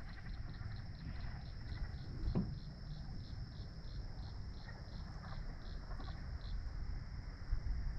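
Chorus of night insects: a steady high-pitched drone with a pulsing chirp of about four beats a second over it, which stops about six and a half seconds in. A low rumble runs beneath, with a soft knock about two and a half seconds in.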